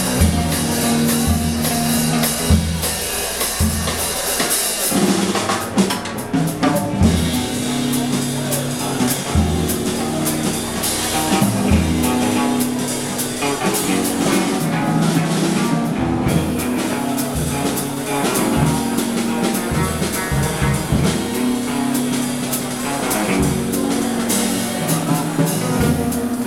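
Live instrumental duo of electric guitar and drum kit playing together: the guitar through a small amp carries the changing melody and chord notes, while the drums and cymbals keep a steady beat.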